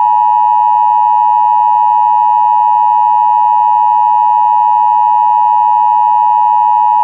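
Emergency Alert System attention signal: a loud, steady electronic alert tone held without a break, marking the start of an emergency message.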